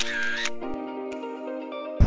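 Short musical transition sting: a brief wavering, bending tone in the first half second, then a held chord of several notes with a few light clicks.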